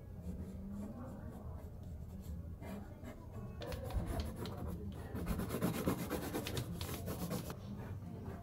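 Pencil scratching and rubbing on a large sheet of paper pinned to a wall, in quick sketching strokes that are loudest and densest in the middle few seconds.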